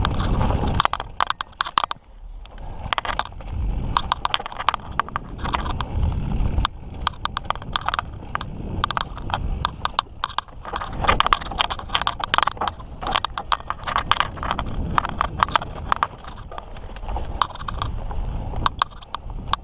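Mountain bike clattering over a rough trail: a dense, irregular run of sharp knocks and rattles from the bike over rocks and roots, over a low rumble.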